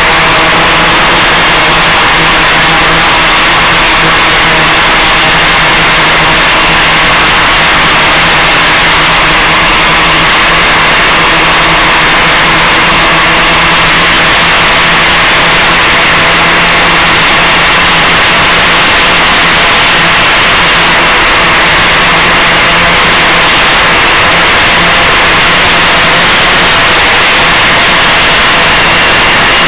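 Gaui 500X-S electric RC helicopter in flight, heard through its onboard camera's microphone over the analog FPV video link: a loud, steady hiss with a constant low hum, unchanged throughout.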